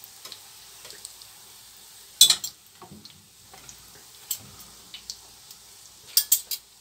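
Doughnuts sizzling in hot oil in a frying pan while a metal fork turns them, clinking and scraping against the pan: one sharp clink about two seconds in, a few lighter taps, and a quick run of three clinks near the end.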